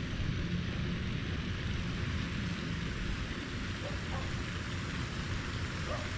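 Wind blowing across the microphone, a steady low rush.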